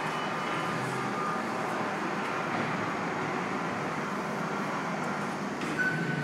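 Steady mechanical rumble and hiss of heavy machinery in a steel fabrication shop, with faint whining tones and a brief high tone near the end.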